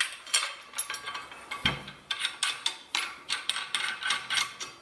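Steel parts of a folding survival shovel clicking and clinking in quick, irregular taps as the blade is set at an angle for use as a hoe.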